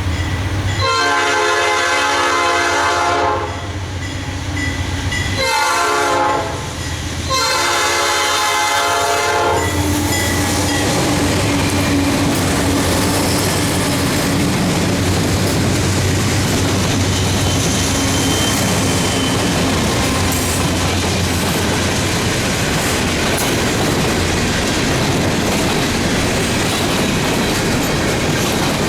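Diesel locomotive horn sounding a chord in a long, short, long pattern for the grade crossing, ending about ten seconds in. After that, the freight train rolls past with a steady, loud rumble and wheel clatter.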